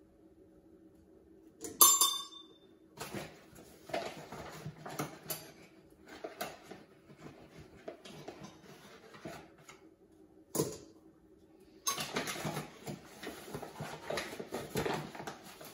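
Flour being scooped from a paper bag with a metal cup over a stainless steel mixing bowl: a sharp ringing metallic clink about two seconds in, then rustling of the paper bag and scraping of the scoop, with another sharp clink partway through.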